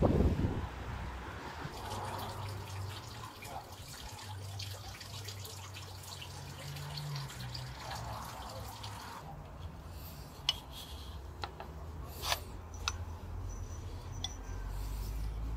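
Water dripping and trickling over a low steady hum, with a brief low thump at the very start and a few sharp clicks in the second half.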